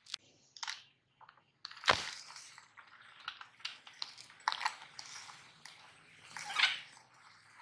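Oreo cookies dropped into the steel hopper of a meat grinder, knocking and clattering against the metal. There is a sharp knock about two seconds in, a few lighter ones, and a louder rattle near the end.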